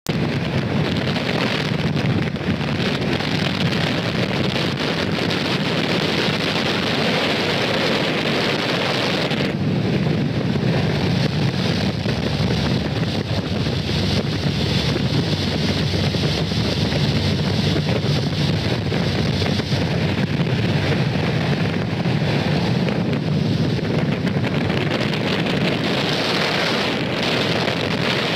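A speedboat under way at speed: steady engine and hull rumble on the water under heavy wind buffeting the microphone. The higher hiss drops sharply about ten seconds in and builds back up near the end.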